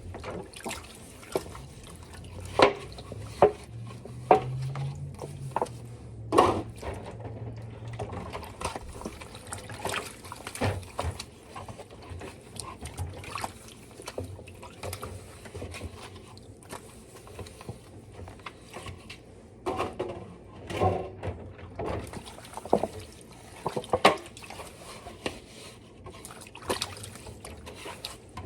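Water running and splashing in a sink, with frequent sharp clinks and knocks of things being handled in it.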